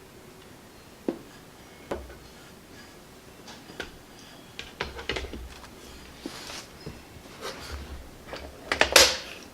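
Alienware monitor stand parts being handled and fitted together: scattered knocks and clicks, with a louder clack near the end as a piece goes into place.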